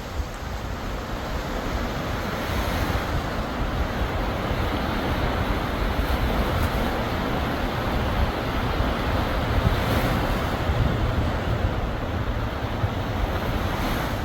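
Caspian Sea surf washing steadily on the shore, with wind buffeting the microphone.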